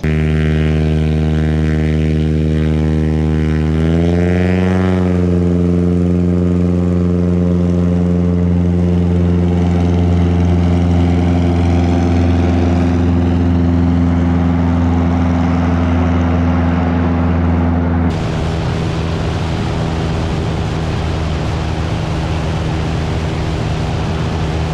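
Single-engine light aircraft's piston engine and propeller running at high power. The pitch rises about four seconds in, as power comes up, and then holds steady. About eighteen seconds in, the sound changes abruptly to a rougher, noisier engine sound.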